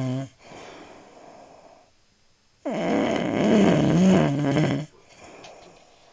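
A man snoring: the end of one snore at the start, a softer breathy exhale, a short pause, then a loud snore with a low, wavering pitch lasting about two seconds, followed by another soft exhale.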